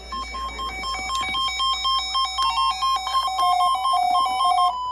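Electronic beeping tune of quick, short notes, several a second, hopping mostly between two pitches like a phone ringtone.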